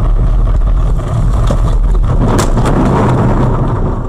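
A car heard from inside its cabin on a snowy road: a loud, steady low rumble of engine and tyres. A few sharp knocks and a swelling rush of noise come about two to three seconds in, as the car leaves the road into the snow.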